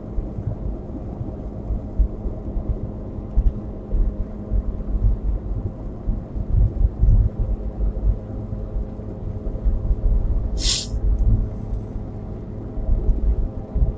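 Steady low road and engine rumble inside a 2016 Nissan Versa's cabin at highway speed, with a constant low hum under it. A brief hiss cuts in once, about ten seconds in.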